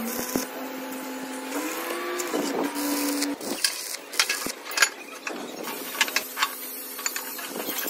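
A steady machine hum that rises a little in pitch and cuts off about three seconds in, followed by irregular sharp metallic clicks and knocks from work on a steel excavator bucket.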